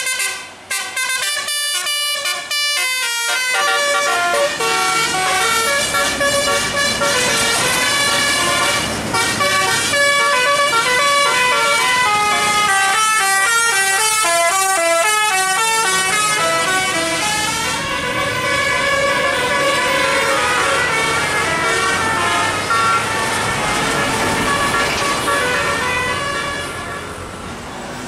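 Bus 'telolet' musical air horn playing fast multi-note tunes again and again, with a bus's diesel engine running underneath from a few seconds in. The horn dies down near the end.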